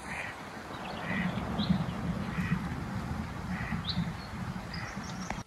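Birds calling: short, repeated calls about once a second with a few higher chirps between them, over a steady low rumble of wind on the microphone.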